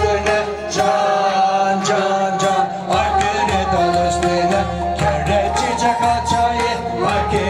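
A man singing a Turkish folk song (türkü) to live accompaniment from an end-blown flute, a bağlama and a keyboard, over a steady beat.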